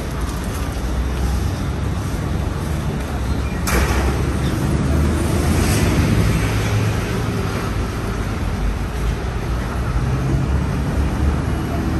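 Street traffic running past, dominated by a heavy vehicle's low engine hum. A sharp knock comes about four seconds in, and the engine rumble is louder for a few seconds after it.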